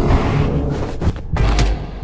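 A Lexus LS 500 F Sport sedan rushing past, its sound dying away. About a second in come several sharp hits and deep booms of cinematic sound design.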